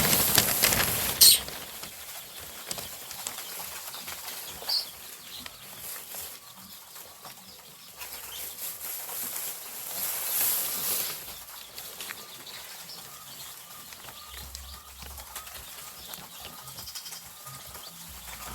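A crowd of day-old broiler chicks peeping and scurrying, startled by the feed sack being touched, with a loud rustle of the sack in the first second or so.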